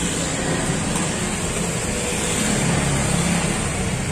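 Steady road traffic noise: the low rumble of a motor vehicle running nearby, swelling slightly in the middle.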